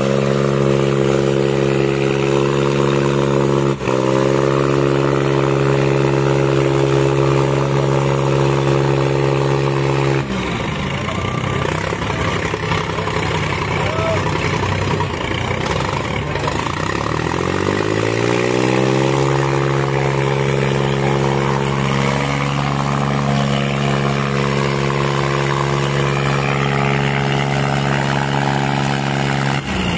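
Diesel tractor engines of an Eicher 557 and a Sonalika 750 held at full throttle under heavy load in a tractor tug-of-war, a steady strained engine note. About ten seconds in the note breaks into rougher noise, then climbs back up in pitch and settles steady again.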